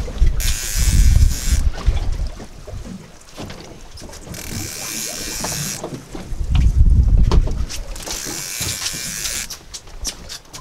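Conventional fishing reel cranked in three short bursts, each about a second and a half long, as a halibut is pumped and reeled up from the bottom on a bent rod. A low rumble runs underneath.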